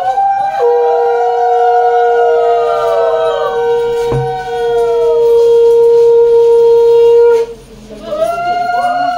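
Conch shell blown in one long steady note that stops near the end, over women ululating (hulahuli) in repeated falling swoops that carry on after the conch stops.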